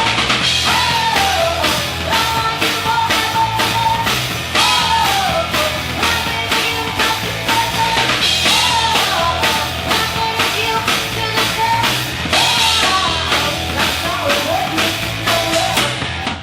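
Live rock band playing: a woman singing a melody over drum kit and guitar, in a punk-influenced, 70s rock style.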